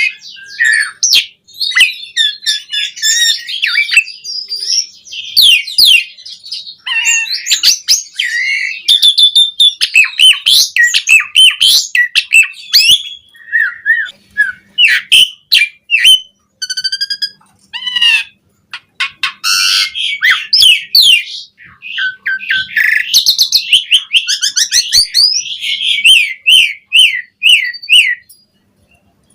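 Asian pied starling (jalak suren) in full song: a long, varied run of chirps, whistles, harsh chatters and rapid clicking rattles, with short pauses between phrases. The song is packed with mimicked phrases (isian).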